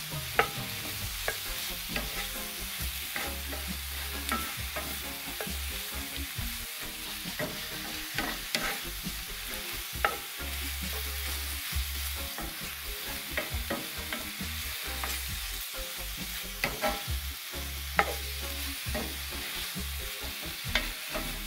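Sliced portobello mushrooms, red bell pepper and onion sizzling in grapeseed oil in a skillet while a wooden spatula stirs them. The spatula scrapes and knocks against the pan throughout, with a few sharper taps standing out.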